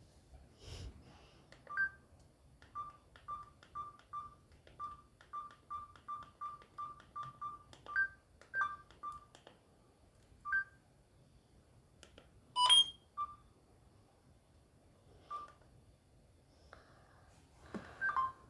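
Keypad beeps from a Samsung GT-C3593 mobile phone as its buttons are pressed. They are short single-pitch tones, often two or three a second in irregular runs, with one louder, fuller tone about two-thirds of the way in.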